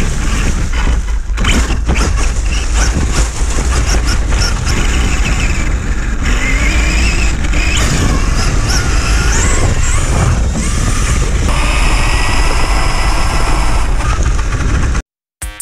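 Onboard sound of a Kyosho USA-1 VE electric monster truck being driven hard. A high motor and drivetrain whine rises and falls with the throttle, over a steady rush of wind on the camera and the tyres crackling over leaves and rough ground. The sound cuts off suddenly near the end.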